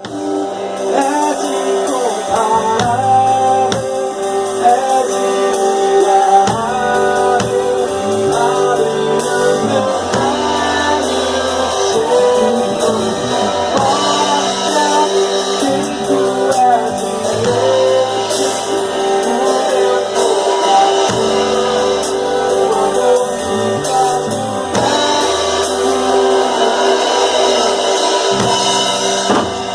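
A live band playing a song with a singer, a drum kit and guitar.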